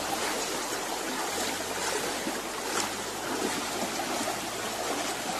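Steady rushing of a river's flowing water, an even hiss with no break.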